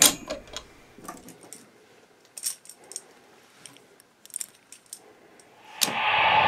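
Dummy .308 cartridges in a metal link belt clinking against each other and the machine gun's receiver as they are handled: scattered light metallic clicks. Background music comes in near the end.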